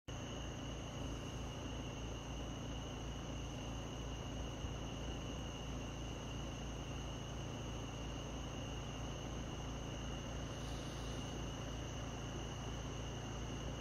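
Steady, unbroken high-pitched trill of crickets, with a low steady hum underneath.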